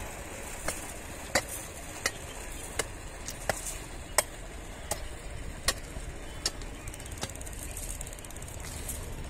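Railway motor trolley running along the track: a steady low engine rumble with a sharp click repeating about every three-quarters of a second as it rolls along the rails.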